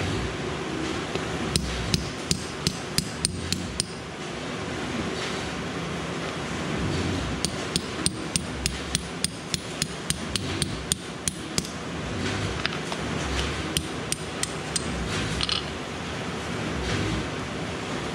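Hammer tapping a steel pin punch to drive a pin out of a solenoid. The sharp metallic strikes come in quick runs: about eight near the start, a longer run of about twenty in the middle, then a few scattered taps.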